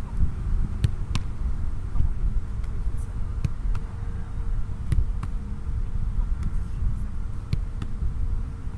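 A soccer ball being struck and caught by goalkeepers' gloves: about ten sharp thumps at irregular intervals, over a steady low rumble.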